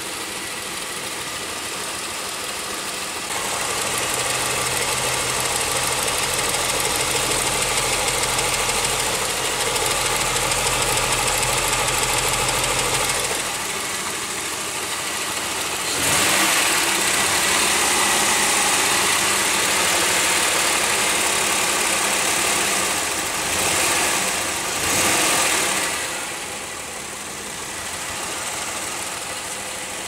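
2001 Pontiac Aztek GT's 3.4-litre V6 running at idle with a misfire on cylinder 4, which the owner suspects is a failing ignition coil.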